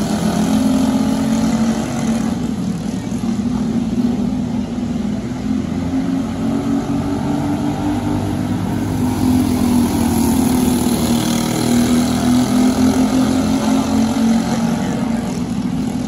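Racing kart engines running together, their notes wavering up and down.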